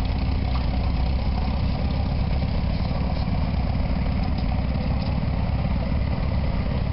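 Vintage red farm tractor engine running steadily at low speed as it pulls a loaded trailer past, a low, even firing rhythm with no change in pace.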